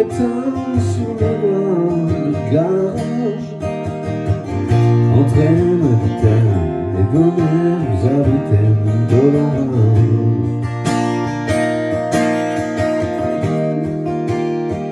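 Music: a song accompanied by strummed acoustic guitar, with a gliding melodic line over the chords for about the first ten seconds.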